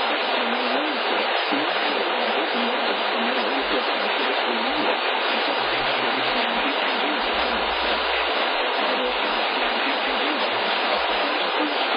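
Steady radio static hiss, narrowed like a radio or phone channel, with no voice or tone in it.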